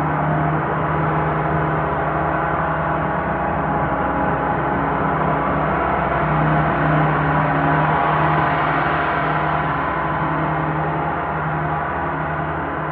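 Large hanging gongs played continuously, a dense wash of many overlapping ringing tones with no single strike standing out. It swells a little just past the middle, then holds steady.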